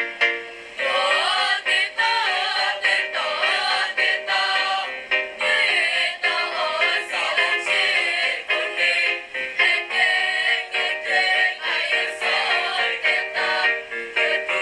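A school choir of mixed boys' and girls' voices singing an ethnic Indonesian choral piece, the voices coming in about a second in after a few held notes and then singing on with sliding, wavering melodic lines.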